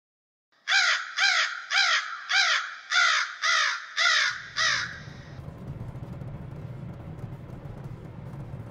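A crow cawing eight times in a quick, even series, about two caws a second. After the caws a low, steady rumble follows.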